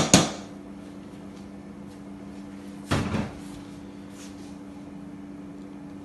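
Perforated stainless-steel colander knocked against the rim of a cooking pot to shake out half-boiled rice: two sharp clanks at the start and a shorter rattle about three seconds in, over a steady low hum.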